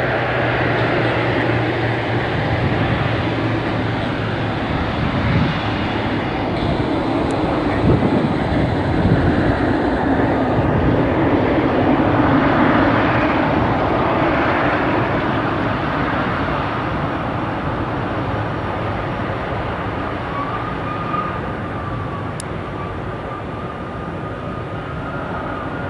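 Jet engine noise from a Boeing 777 Freighter's GE90 turbofans as the airliner taxis past on the runway. The steady rumble swells through the middle as the engines pass closest, then eases as the jet turns away, with a thin whine coming in near the end.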